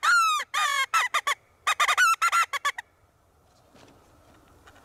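Coyote-type vocalizing: one loud call that falls in pitch, then rapid runs of short, high yips in two bursts. The calling stops about three seconds in, leaving faint background noise.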